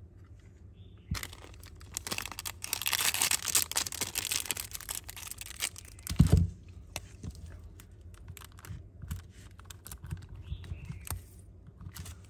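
Packaging wrapper crinkling and tearing as it is handled for several seconds, ending in a single loud thud about six seconds in, followed by scattered small clicks and taps.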